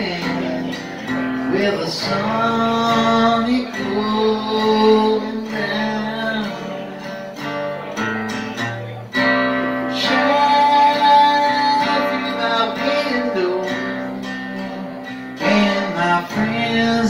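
A man singing, accompanied by his own strummed acoustic guitar, with long held vocal notes.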